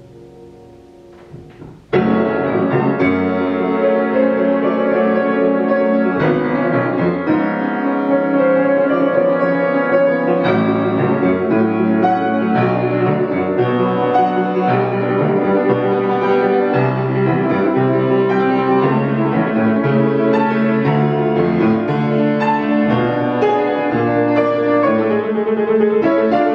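Solo grand piano playing classical music: a soft held chord dies away, then about two seconds in a loud, sudden entry breaks into fast, busy passagework.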